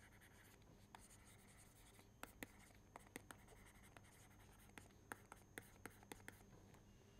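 Faint taps and light scratches of a stylus writing by hand on a tablet, a dozen or so small clicks mostly from about two seconds in.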